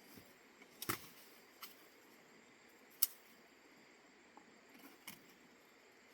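A few scattered light knocks and clicks over a faint steady hiss, with a sharp click about three seconds in.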